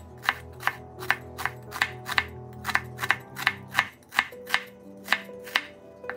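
Chef's knife slicing a red onion on a wooden cutting board, the blade knocking the board in a steady rhythm of about two to three cuts a second.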